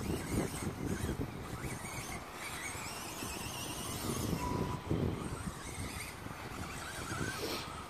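Sworkz S12-1R electric RC buggy being driven round the track, its motor whine gliding up and down in pitch as it speeds up and slows.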